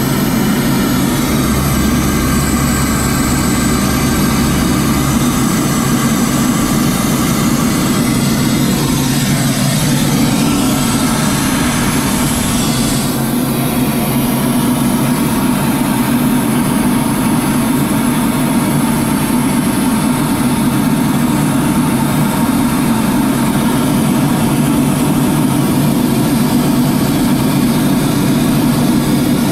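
Steady engine and airflow noise of an aircraft in flight, heard from inside its cockpit: a constant low hum under a wide hiss, with a falling whine about eight to eleven seconds in.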